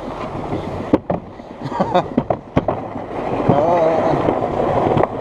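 Alpine slide sled running down its concrete trough: a steady rough rumble of the sled on the track, with sharp knocks about a second in and a couple more near two and a half seconds, growing louder in the second half as it picks up speed.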